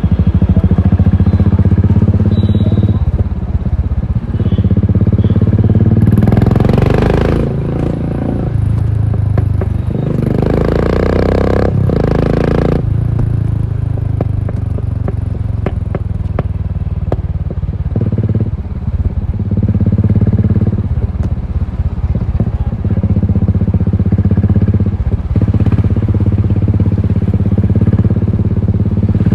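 Royal Enfield Continental GT 535's single-cylinder engine with an aftermarket exhaust, running under way as the throttle opens and eases. Twice, about 6 and 11 seconds in, a loud rushing hiss rides over it.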